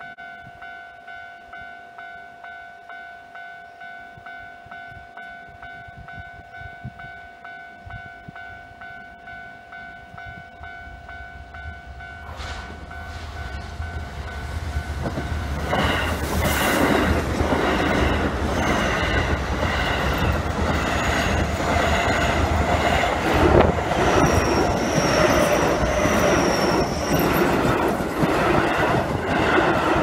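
Japanese railway level-crossing warning bell ringing in a steady repeated pulse. About halfway through, a Keio Line electric commuter train comes in and passes close by, loud, with a rhythmic clatter of wheels over rail joints that covers the bell. Near the end comes a thin high squeal.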